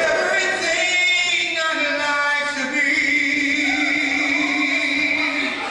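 A man singing solo into a microphone, a gospel-style run of shifting notes that settles about three seconds in on one long held note, which tails off near the end.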